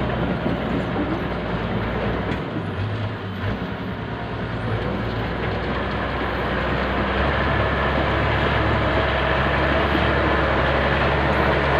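Bulldozer's diesel engine running steadily under work, easing off briefly about three seconds in and pulling harder again from about seven seconds on.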